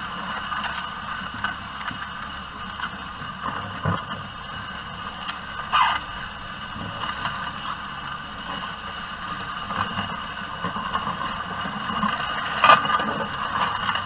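Tractor-drawn cable plough being dragged through the soil of a roadside verge as it lays microducts: a steady mechanical rattle and scraping, with a few sharper clanks about four, six and thirteen seconds in.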